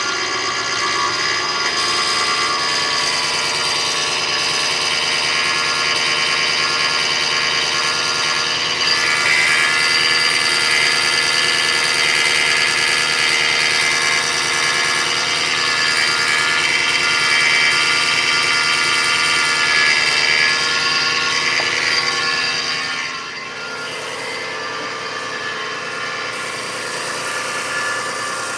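2005 Kia Sedona's 3.5L V6 engine running with a loud, steady whining noise made of several high tones. It drops off about three quarters of the way through, leaving a quieter idle. The noise came on after a timing belt and water pump replacement, and its cause is unknown to the owner.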